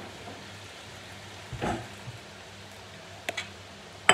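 Steady low hum and hiss of a kitchen, with a dull knock about halfway and two light clicks, then a sharp clack near the end as a ceramic bowl is set down on a granite worktop.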